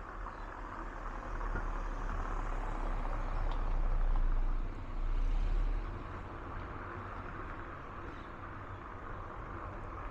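Outdoor background noise with a low rumble that swells for a few seconds in the middle and then settles back.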